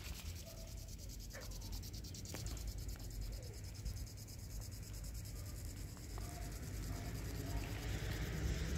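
Evening outdoor ambience: a high, fast, even pulsing of insects such as crickets, over a low rumble, with a few faint short calls in the distance.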